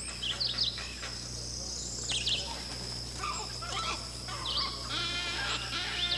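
Wood stork chicks in the nesting colony squawking with begging calls, a chorus of overlapping nasal, bleating cries that their hunger drives. The calls grow denser and louder about five seconds in.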